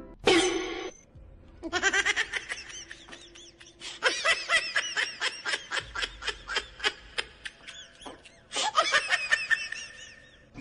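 Yellow rubber screaming-chicken toys being squeezed. One loud squawk comes just after the start, then a long run of quick squawks at about four a second, and another quick burst near the end.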